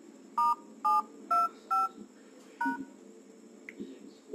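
Dialer keypad tones from an LG MS323 smartphone: five short touch-tone beeps, each two tones sounding together, about half a second apart with a slightly longer gap before the last, as a USSD code is keyed in.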